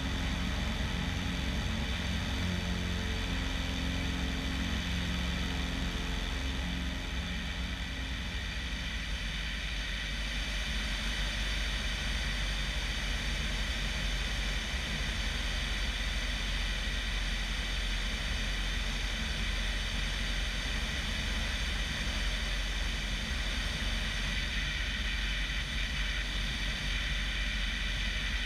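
Bellanca Decathlon 8KCAB's 150 hp Lycoming engine and constant-speed propeller running steadily at high power through the takeoff roll and climb-out, with wind rushing over the outside microphone.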